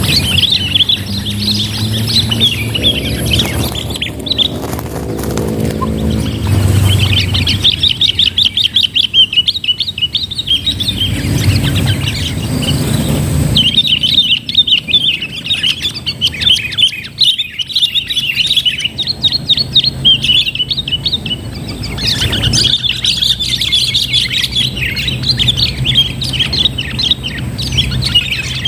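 Sooty-headed bulbuls (kutilang) calling in rapid, chattering runs of a few seconds each, with short gaps between them. A low droning runs underneath in the first several seconds.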